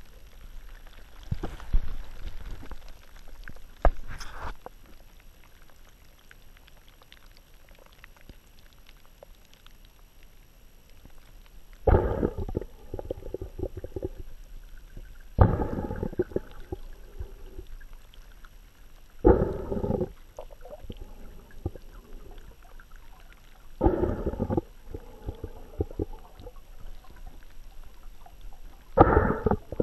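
Muffled rushes of bubbling breath from a swimmer in the water. After a quieter stretch they come in a regular rhythm of about one every four seconds.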